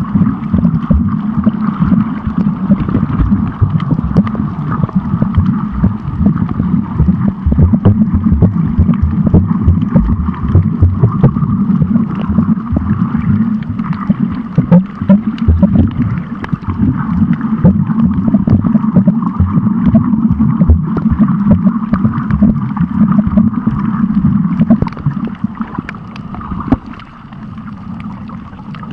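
Underwater noise picked up by a camera held under water: a steady churning rumble of moving water with many small crackles, which falls quieter near the end.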